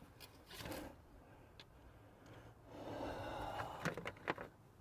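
Faint breathing and a few sharp clicks near the end, from a brake caliper bolt being fitted and run in with a wrench.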